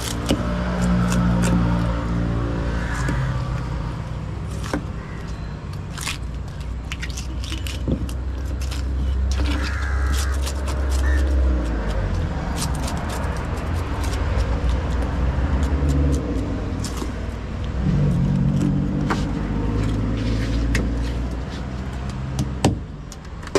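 A motorcycle engine running close by, a steady low drone throughout, with a heavy knife knocking and scraping as it cuts and scales tilapia on a wooden chopping block.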